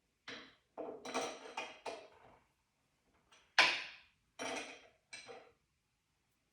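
Metal tool knocking and clanking against a BikeErg pedal and crank: a loose run of sharp metallic knocks with short ringing, several close together in the first two seconds, the loudest about three and a half seconds in.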